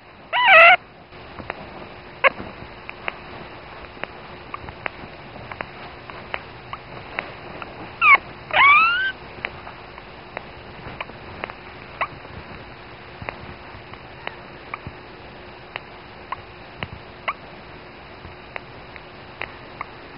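Newborn dachshund puppy squeaking and crying: a short high cry just after the start, then two more about eight seconds in, the second rising in pitch. Faint clicks tick irregularly throughout.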